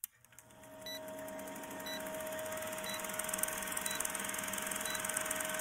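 Old-film countdown leader sound effect: the fast, even clatter of a film projector over a steady hum, with a short beep about once a second.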